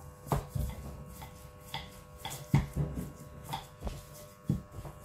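Hands pressing and patting small balls of dough flat on an oiled plate, giving a string of irregular soft knocks and thumps.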